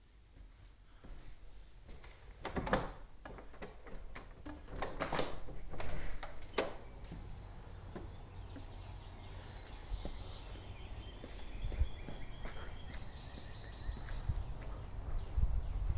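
A door opening and closing and footsteps make several sharp knocks and clunks in the first half. From about halfway in, faint birds sing outdoors over a low rumble.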